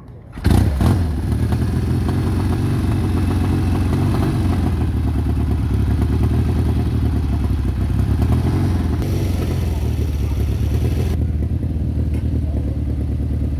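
A Norton café racer motorcycle's engine starts about half a second in, then runs steadily at idle.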